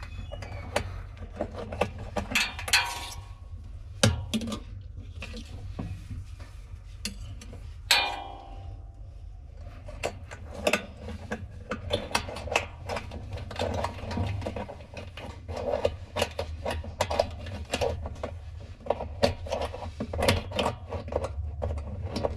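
Repeated metallic clinks, taps and scrapes inside a washing machine as a jammed coin is worked at to free it, over a steady low hum.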